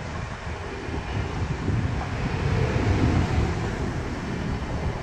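Warsaw SKM electric commuter train passing close by, a steady rumble of wheels on the rails, with wind buffeting the microphone.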